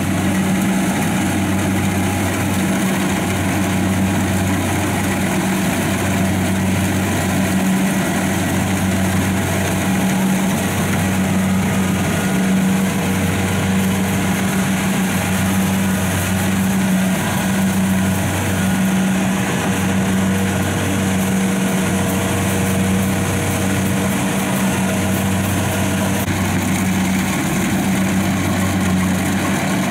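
Kubota rice combine harvester's diesel engine running steadily under working load as it cuts through the rice. Its low hum pulses evenly, about once every second and a half, over a constant wash of machinery noise.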